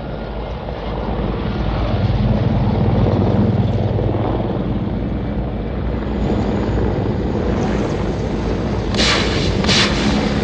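A group of military helicopters flying overhead, a steady low rumble of rotors and engines. Near the end come two sudden rushing blasts, less than a second apart.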